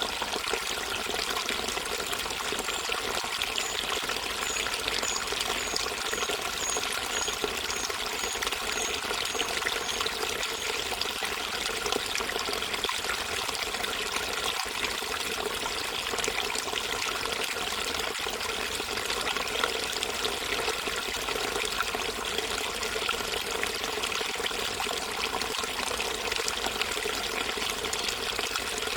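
Gentle river flowing and trickling over rocks, a steady, even rush of water.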